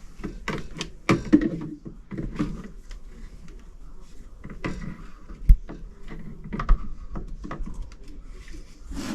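Irregular clicks, scrapes and rustles of nest material and dead birds being pulled out of a gas furnace's inducer housing, with one sharp knock about five and a half seconds in.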